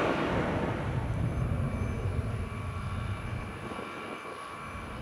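Departing airliner's jet engines passing and fading away, the rush of engine noise dying down steadily as the plane moves off.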